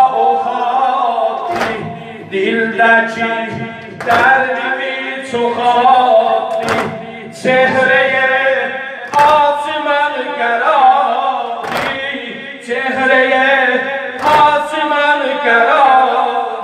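Male mourners singing a Muharram lament (noha) in chorus, with a loud unison chest-beating slap (sineh zani) about every two and a half seconds, six strikes in all, each followed by a swell of the sung refrain.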